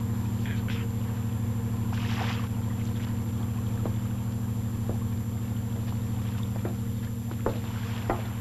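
A fishing boat's engine running steadily: a low, even hum with a fast pulse. A few faint knocks are heard over it, and a brief hiss comes about two seconds in.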